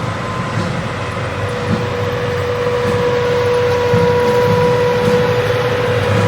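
Military vehicles driving past in a parade: a steady engine rumble under a high whine that holds one pitch and dips slightly near the end.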